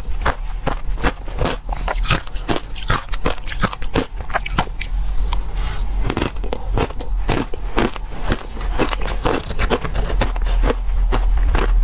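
Close-miked biting and chewing of frozen shaved ice: crisp crunches and crackles come several a second, easing briefly about five seconds in.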